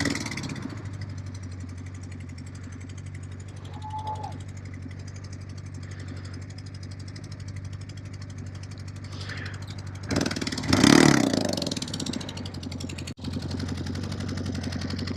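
Yamaha XJ600S air-cooled inline-four motorcycle engine running steadily with a spark plug blown out of one cylinder, so it is not running on all cylinders and makes a bad, scary sound. About ten seconds in, the sound briefly swells louder.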